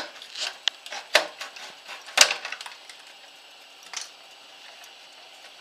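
Handling clicks and knocks from a cut-down plastic milk jug and a metal tool, the loudest a little over two seconds in, with another knock about four seconds in; then only a faint steady hiss.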